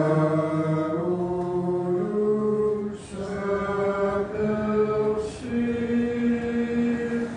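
A small church congregation singing a slow Lutheran hymn with long held notes, the melody stepping to a new pitch about once a second. There are short breaks in the singing about three seconds in and again just after five seconds.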